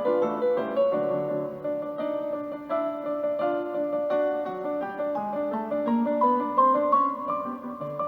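Background music: a gentle piano melody with steady, evenly paced notes.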